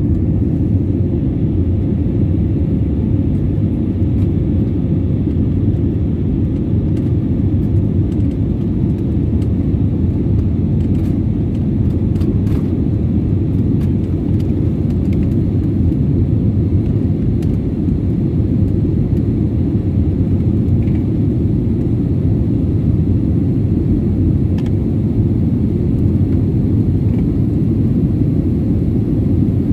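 Steady low roar inside a jet airliner's cabin during the climb after takeoff: engine and airflow noise.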